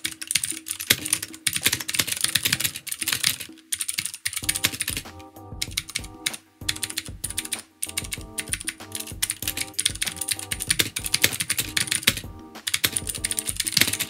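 Typing on a Red Scarf II+ aluminium-cased mechanical keyboard with Cherry MX Blue switches: fast runs of sharp clicks from the clicky, tactile switches, broken by a few short pauses.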